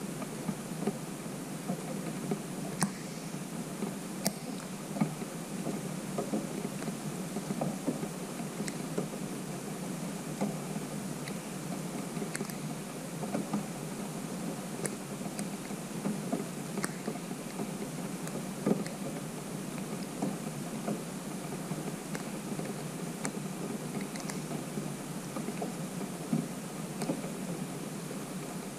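Light rain falling on a pond: a steady hiss of rainfall with individual drops pattering and ticking at irregular moments.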